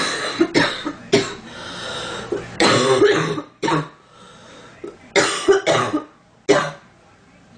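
A girl coughing repeatedly, about eight coughs in several short bouts.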